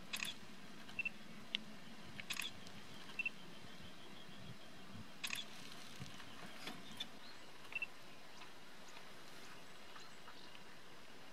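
Scattered short bird calls in a marsh: a few sharp high notes and, now and then, a soft tiny double peep, over a steady faint hiss.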